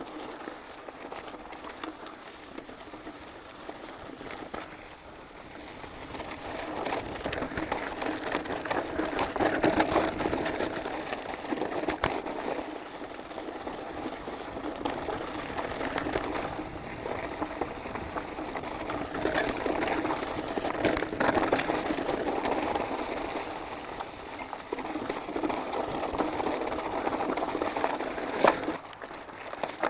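Specialized Enduro mountain bike riding down a rocky dirt and gravel trail. Its tyres crunch and hiss over loose ground, the bike rattles, and a few sharp knocks come from rocks and bumps. The noise gets louder about six seconds in and rises and falls after that.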